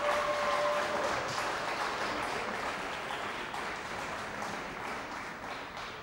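Audience applauding, gradually fading. The last held note of the music dies away about a second in.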